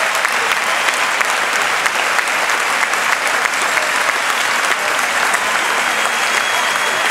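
Large crowd applauding steadily, a dense even clatter of many hands clapping.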